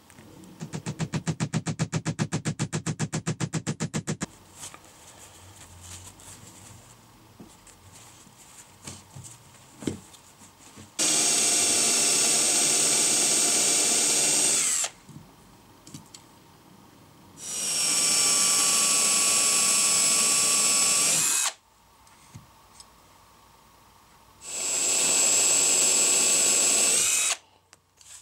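Electric drill boring holes into an MDF board, running in three separate bursts of about three to four seconds each, each one starting up and cutting off sharply. Before the drilling, near the start, there is a loud, rapid rattle of about ten beats a second lasting a few seconds.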